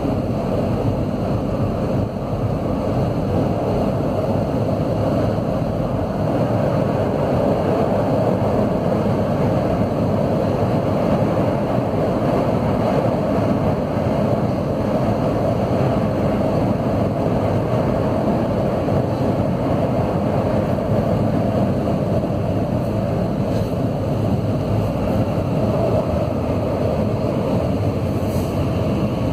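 CAF AS 2014 steel-wheeled electric metro train running through a tunnel, heard from inside the front car as a steady, loud rumble of wheels on rail.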